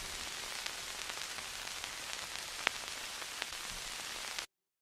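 Steady hiss with a few faint scattered clicks, cutting off suddenly near the end.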